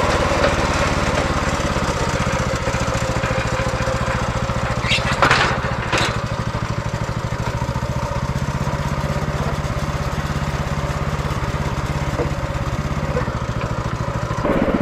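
Small engine of a Yardmax tracked power wheelbarrow running steadily, with a brief clatter about five to six seconds in.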